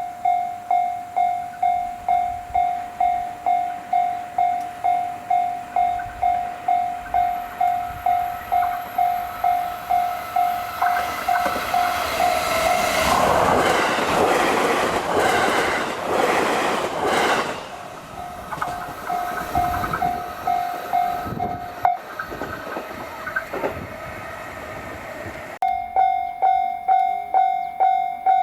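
Japanese railway level-crossing alarm bell ringing in a rapid, steady ding-ding. Roughly midway a train passes at high speed, its loud rush and wheel clatter drowning out the bell for several seconds. The bell then cuts out for a few seconds and starts again, louder, near the end.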